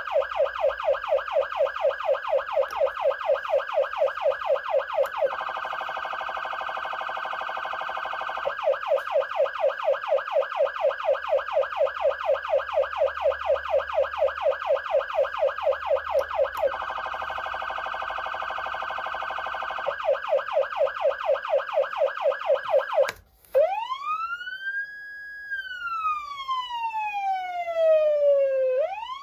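Federal Signal Unitrol electronic siren amplifier sounding through its speaker: a fast up-and-down sweep about four times a second, twice switching for a few seconds to a quicker, denser pulsing tone. About 23 seconds in it cuts off, and a manual siren tone rises, holds at its top pitch, slides slowly down and starts rising again near the end.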